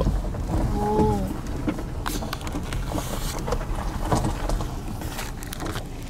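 Car engine idling, a steady low rumble heard from inside the cabin, with scattered irregular clicks and knocks and a brief murmur of a voice about a second in.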